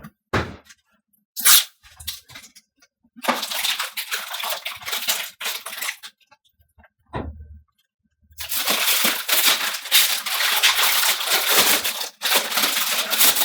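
Packing tape being peeled off a Fabcure 2 curing station in long rasping pulls, one from about 3 to 6 seconds in and a longer one from about 8 seconds on, with a few sharp clicks and handling knocks before them.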